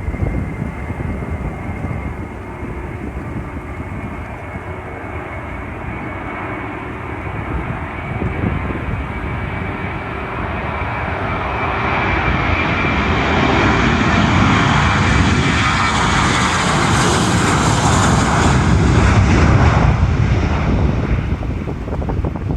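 Boeing 737-800 jet engines, CFM56-7Bs, with a steady whine. The jet noise grows louder as the airliner passes, is loudest about three quarters of the way through, then begins to fade. Wind buffets the microphone.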